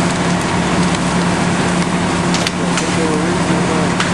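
A fire engine's engine and pump running steadily with a constant low hum, over the rushing hiss of hose streams. Occasional sharp cracks from the burning building.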